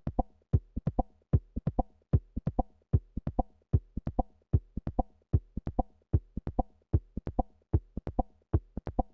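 Delta (the part the limiter removes) of the Uni-L mastering limiter working on an electronic drum loop: short, sharp clicks on each drum hit in a steady rhythm, several a second, with little between them. The clicks are distortion let through on transients, because the transient override sets a short lookahead.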